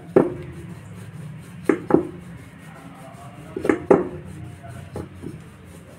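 Rolling pin rolling out dough, with sharp wooden-sounding clacks about every two seconds, twice as quick pairs, as the pin knocks against the rolling surface.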